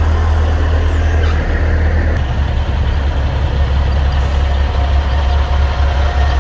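Semi-truck diesel engines rumbling at low speed as tractor units drive past. The low rumble turns pulsing about two seconds in.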